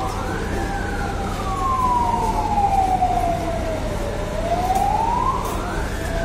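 Fire engine siren wailing in a slow rise and fall: it peaks about half a second in, falls slowly for about three and a half seconds, then climbs to a second peak near the end. A fainter, nearly steady tone runs beneath it.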